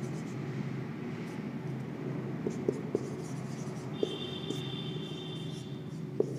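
Marker pen writing on a whiteboard, with a few light ticks as the tip strikes the board. From about four seconds in it gives a thin, high squeak lasting about two seconds.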